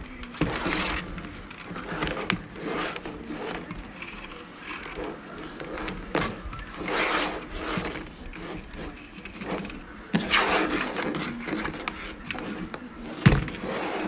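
Handling noise from a plastic Black+Decker fan being moved on a hard tabletop: irregular scrapes and rubbing, with one sharp knock about 13 seconds in.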